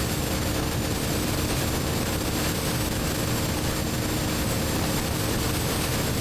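BMW R1250GS Adventure's boxer-twin engine, breathing through an Akrapovic slip-on exhaust, running at a steady cruise under a constant rush of wind and road noise. The engine note holds even, with no revving or gear changes.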